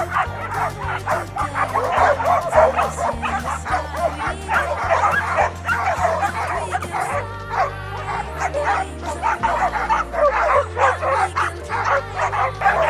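Dogs barking and yipping in rapid, overlapping barks, over background music with a steady bass line.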